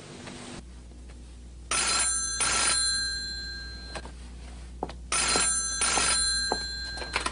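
Old-style desk telephone bell ringing: two rings, the second longer than the first.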